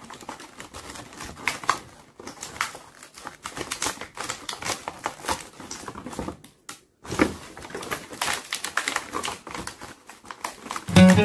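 Scissors snipping through a stiff clear plastic blister pack, with the plastic crackling and clicking as it is cut and pulled apart, in a string of irregular clicks. Music comes in at the very end.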